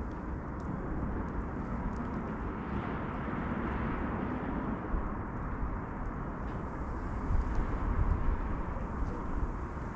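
Steady outdoor rumble of city traffic, with a few faint ticks and a louder low rush about seven to eight seconds in.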